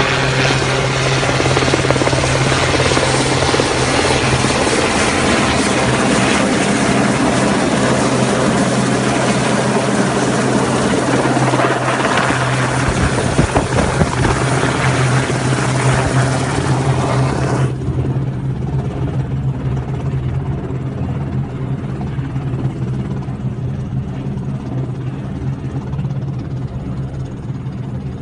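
RAF Westland Sea King helicopter running loud and steady, a rotor beat and a low steady hum under a dense rushing hiss, with a few louder thumps in the middle. About 18 seconds in the hiss drops away suddenly and the sound grows somewhat quieter, leaving the lower hum and rotor sound.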